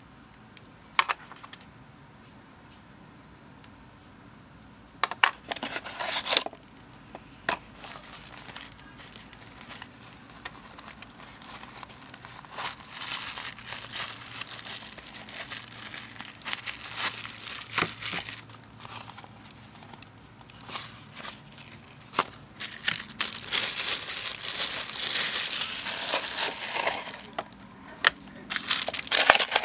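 Plastic packaging crinkling by hand in irregular bursts, busiest in the second half, with a sharp click about a second in.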